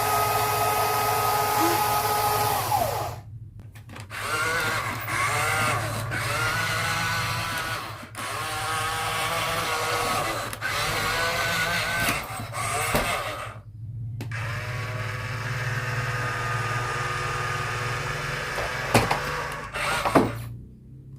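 Small electric gear motors of remote-control construction toys whining, their pitch rising and falling as they start and stop, with short pauses and a couple of sharp clicks near the end.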